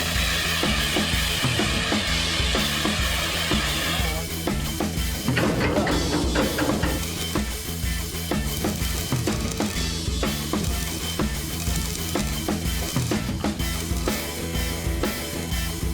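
Background music with a steady drum beat and bass line, rock-style.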